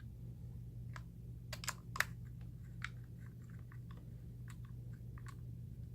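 Scattered light clicks and ticks of a small Torx T6 screwdriver and screws being worked into the plastic case of a Nuance PowerMic II dictation microphone, over a steady low hum.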